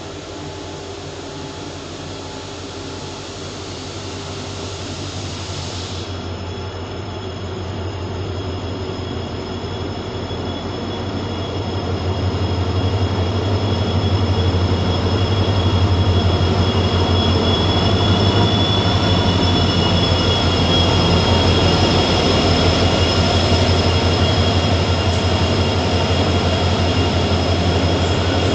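Indian Railways WDG4 diesel locomotive (EMD two-stroke engine) approaching slowly and running past at the head of a goods train, its engine throb growing louder over the first dozen seconds and then holding steady. From about six seconds in a steady high whine runs over it, and the open freight wagons rumble by on the rails.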